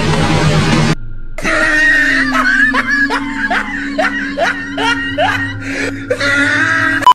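Horror-style sound effect: a steady low drone with a shrill, repeated rising laugh-like cry about twice a second, the cackle used for a kuntilanak ghost. It cuts off suddenly at the end.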